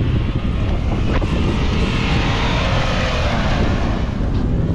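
A 4x4 SUV climbing a steep dirt slope, its engine and tyres on loose ground making a rushing noise that swells about a second and a half in and fades near the end, under heavy wind buffeting on the microphone.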